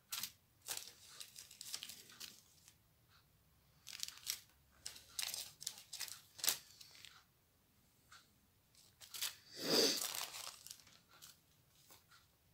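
Small zip-lock plastic bags of diamond-painting drills being handled one after another: thin plastic crinkling and rustling in short, irregular bursts, with the longest, loudest rustle about ten seconds in.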